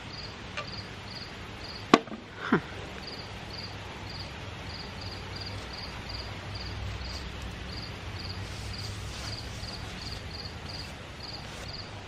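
Insects chirping in steady short pulses, about three a second. There is a single sharp knock about two seconds in and a brief squeak sliding down in pitch just after it.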